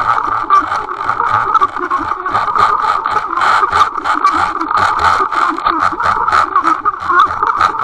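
Underwater sound picked up by a Water Wolf UW 2.0 camera towed on the line by a hooked common carp: water rushing past the housing with a steady hum and many irregular clicks and rattles.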